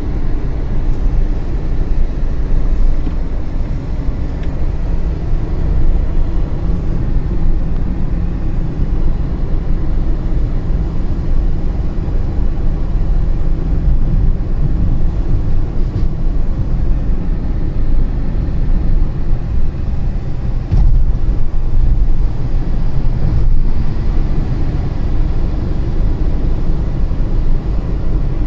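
Car driving at steady speed on a road test after a CVT gearbox repair: a continuous low rumble of engine, tyre and road noise, with no changes in pitch.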